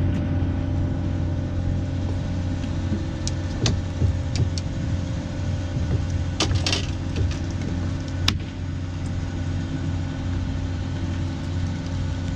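Engine running steadily with a low, even hum, with a few light clicks and knocks over it, the sharpest about eight seconds in.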